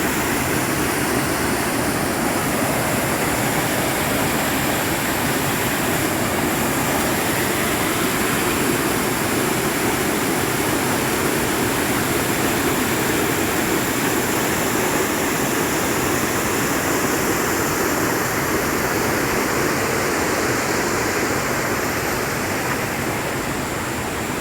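Swollen river in flood, its water rushing in a steady, loud roar-like noise that holds even throughout.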